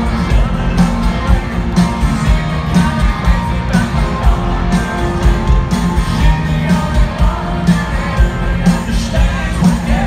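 Live country rock band with a male lead singer, played loud through a stadium PA, with a steady drum beat.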